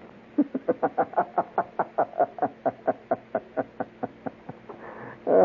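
A rapid, regular string of short pitched vocal cries, about five a second, each dropping in pitch.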